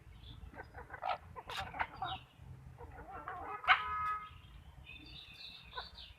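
Backyard chickens clucking in short, scattered calls, with one louder, longer call a little past halfway.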